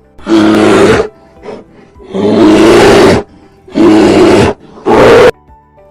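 Bear roaring four times in loud, rough roars, each half a second to a second long, with a short quiet grunt between the first two, over faint background music.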